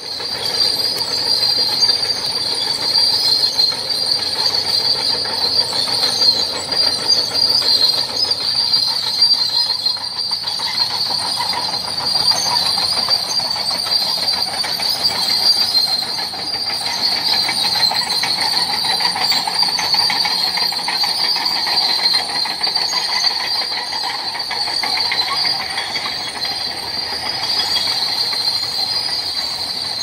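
Tropical forest insect chorus: a loud, steady, high-pitched buzzing drone, with a lower hum beneath it that swells and fades.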